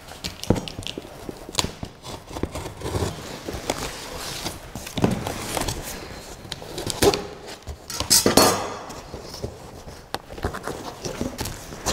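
Packing tape on a large cardboard shipping box being cut open with a hooked blade: scraping and a run of light clicks and knocks on the cardboard. A longer tearing rush comes about eight seconds in, as the box is split open.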